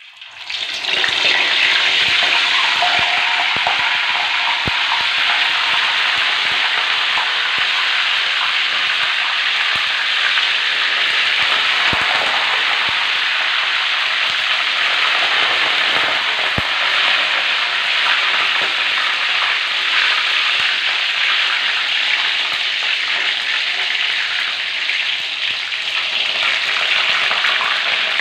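Ketupat palas, leaf-wrapped glutinous rice parcels, deep-frying in hot oil in a wok: a steady, loud sizzle, with a few sharp clicks scattered through it.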